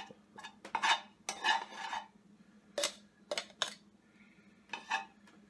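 Metal tongs clicking and scraping against a nonstick frying pan as wilted spinach is picked up and moved into a blender cup. A run of separate clicks and short scrapes, with a longer scrape about a second and a half in.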